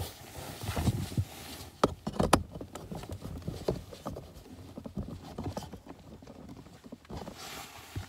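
Handling noise as an OBD-II code reader's plug is fitted into the diagnostic port under the dashboard: scattered small clicks and knocks over rustling, with two sharper clicks about two seconds in.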